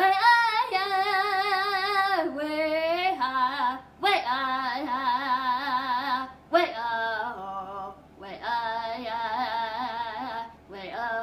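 A woman singing a powwow-style ceremonial song solo, without drum accompaniment, in several wavering phrases separated by short breaths; the first long held note drops lower about two seconds in.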